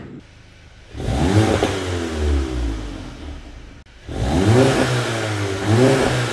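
Mk7 VW GTI's 2.0-litre turbo four-cylinder, fitted with a CTS Turbo high-flow catted downpipe and the stock cat-back exhaust, heard at the tailpipes. It idles quietly, then is revved in quick blips, three in all. Each time the pitch shoots up sharply and then falls away slowly.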